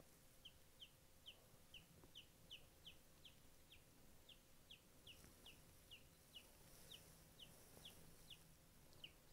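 Baby showgirl silkie chick peeping: faint, high, short peeps that each fall in pitch, repeated evenly about two a second.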